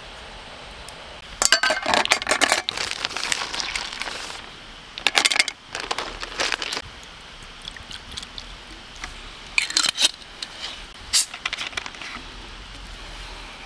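Ice cubes clattering and clinking in a stainless steel camping cup in three bursts of sharp clicks, as a whisky highball is made over ice.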